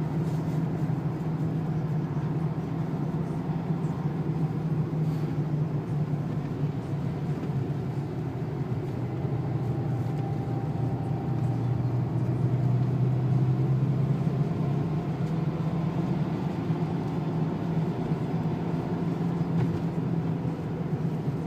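Renault 2.0-litre turbo diesel car driven gently, heard from inside the cabin: a steady engine drone with tyre and road noise on the wet track. The engine note drops lower for a few seconds about halfway through, then rises again.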